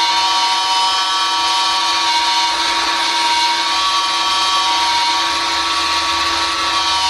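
Loud, overdriven emergency-alert alarm tone: a harsh, steady buzz of several held pitches that does not break or change.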